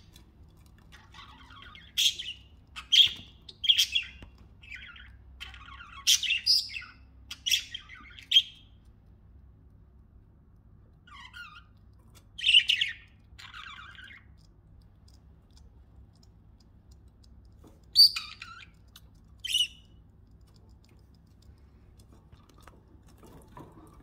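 Pet budgerigars chirping in short, sharp calls: a run of chirps in the first eight seconds or so, a few more about halfway, and two louder single chirps later, with quiet pauses between.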